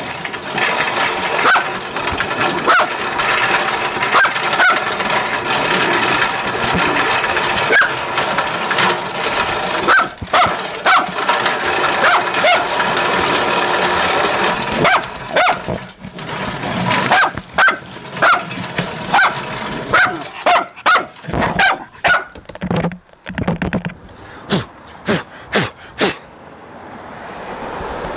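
Dog barking again and again at a running lawnmower, the barks coming thicker in the second half over the mower's steady engine note, which fades away near the end.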